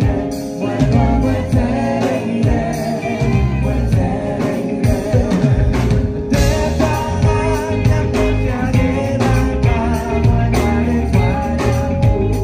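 Live band music: a lead singer over acoustic guitar, drums and keyboard, played through the stage PA and heard from within the crowd.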